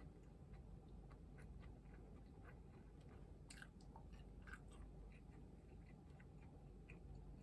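A person chewing food quietly, with soft mouth clicks and a few sharper clicks about halfway through.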